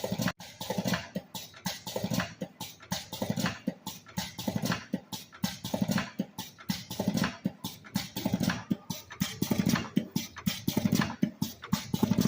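Automatic filter-cigarette making machine running: a fast, even clatter of mechanical clicks with a heavier thump about every second and a quarter.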